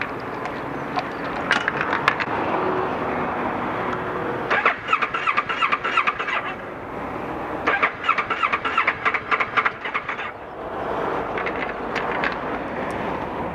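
Kawasaki ER-6n parallel-twin engine cranking on its electric starter in two bursts of a couple of seconds each, turning over with an even rhythmic chug but not firing. A no-start, which the owner suspects comes from a faulty crankshaft or camshaft sensor.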